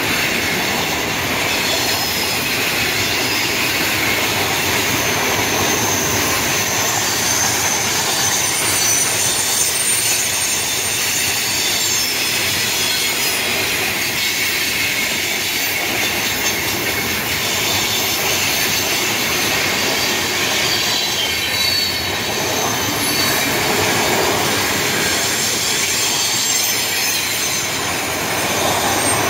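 A long freight train's cars rolling past at speed: a steady, loud rumble of steel wheels on rail, with faint high-pitched wheel squeals coming and going.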